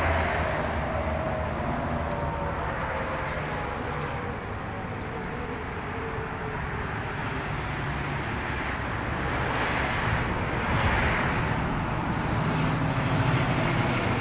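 Steady downtown road-traffic noise, swelling a little near the end as a vehicle goes by. Under it, in the first few seconds, the faint falling tone of a Federal Signal 2001-130 siren winding down fades out.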